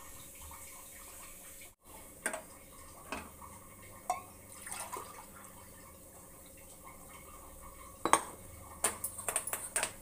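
Stainless steel saucepan and utensils clinking, a few scattered metal knocks followed near the end by a quick run of sharp clinks.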